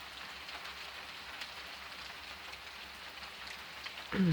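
Gentle rain falling steadily with water dripping: a soft, even hiss with faint scattered drip ticks. Near the end a person's voice sounds briefly, falling in pitch.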